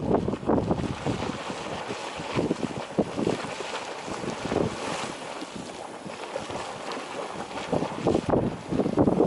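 Geyser erupting, its water splashing and surging in irregular bursts, with wind buffeting the microphone.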